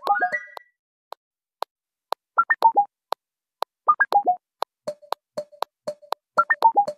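Background music: a synthesizer melody of short plucked notes in falling runs over regular sharp clicks, thinning out to just a few clicks for a second or so before the notes return.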